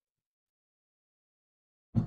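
Silence, then one sudden dull thump near the end as hands press and knead dough in a glass bowl on a wooden table.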